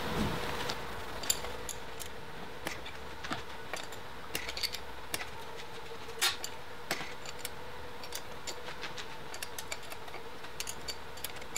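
Scattered light metallic clicks and taps, irregular and a few per second, as small engine parts and tools are handled during a motorcycle top-end teardown, over a faint steady hum.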